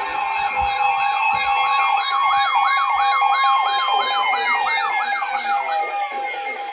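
Electronic alert siren wailing up and down about three times a second over a steady alert tone; the siren winds down, its pitch sliding lower, near the end while the steady tone carries on.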